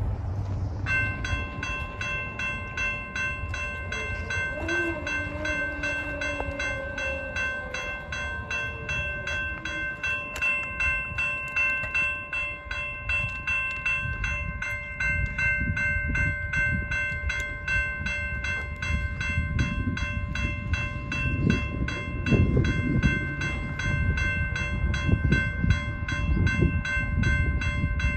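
Railroad crossing warning bell starting about a second in and dinging rapidly and steadily. The low rumble of the approaching BNSF freight train grows louder over the last several seconds.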